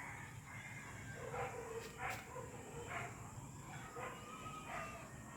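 A dog barking repeatedly, faint, about one bark a second, over a steady high-pitched tone.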